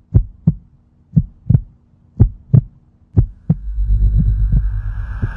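Heartbeat sound effect: deep double thumps in a lub-dub rhythm, about one pair a second, heard four times. A low rumble swells in from about three and a half seconds in.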